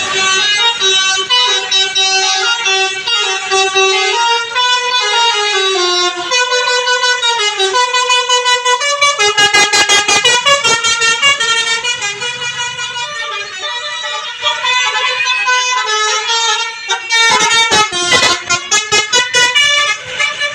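Bus telolet horn, a multi-tone musical air horn, playing a stepping melody of several notes sounded together. It breaks into rapid stuttering blasts about nine seconds in and again near the end.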